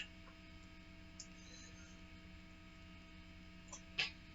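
Faint steady electrical hum with a few soft, brief clicks, one about a second in and two near the end.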